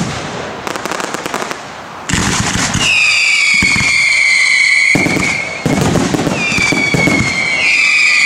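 Aerial fireworks display: shells going off with sharp bangs and a spell of crackling, then whistling effects giving long, high whistles that slide slightly down in pitch. Several whistles overlap near the end.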